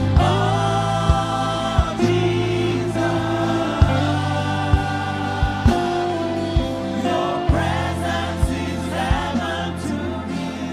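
Gospel worship music: sustained keyboard chords over a steady bass, a soft drum thump about every second, and wordless singing.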